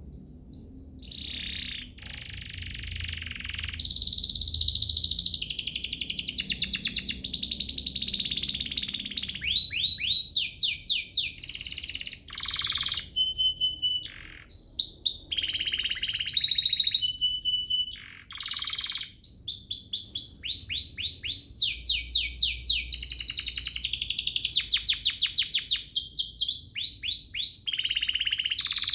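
Domestic canary singing from about a second in: fast trills and rolls of rapid repeated notes, a few clear held whistles around the middle, and phrases broken by short pauses.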